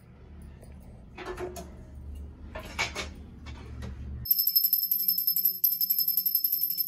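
A small hand bell rung rapidly and without pause, a high, bright ringing in quick strokes that starts suddenly about four seconds in, typical of a pooja bell rung during worship. Before it come a few light clinks and knocks over a low hum.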